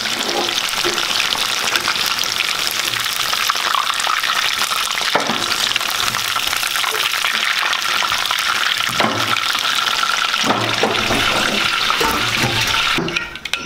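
Battered chicken pieces deep-frying in hot oil in a steel kadai: a steady, loud sizzle, with a few knocks and scrapes of a metal slotted spoon stirring and lifting the pieces. The sizzle drops away near the end.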